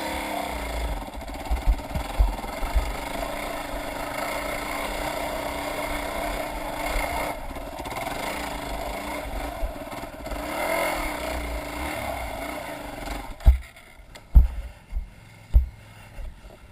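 Trail motorcycle engine running at low speed over rough ground, its pitch swelling with the throttle a couple of times. It stops about thirteen seconds in, and a few dull knocks follow.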